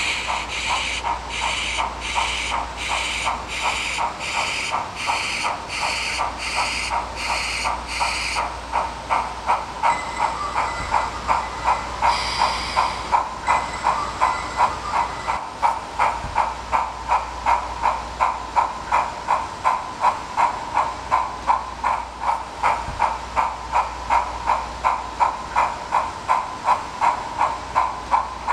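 Model steam locomotive's sound effects: steady chuffing with a sharp steam hiss on each beat at first, about one and a half beats a second. After about eight seconds the heavy hiss drops away and the chuffs quicken to about three a second as the engine gets under way.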